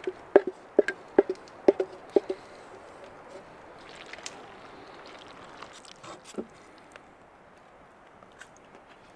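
Wooden spoon knocking and scraping against a metal cooking pot while macaroni is scraped out into cheese sauce: about half a dozen sharp knocks with a short ring in the first two and a half seconds, then faint scraping and a soft thud.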